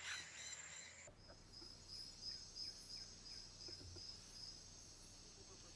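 Faint insect chirping: a high pulsed chirp repeating about three times a second over a steady high buzz, starting about a second in and stopping near the end.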